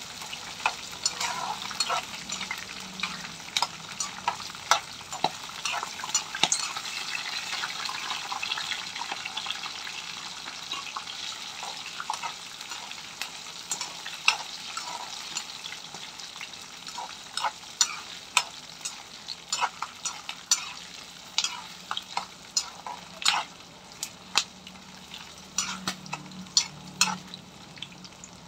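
Peanuts, cashews and chillies sizzling in hot oil in a kadai, the tempering for pulihora, while a metal spatula stirs them with frequent sharp scrapes and clacks against the pan. The sizzle is strongest in the first half and eases off later.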